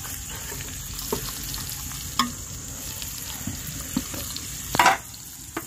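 Marinated fish pieces sizzling in hot oil on a tawa, with scattered pops and one louder pop near the end.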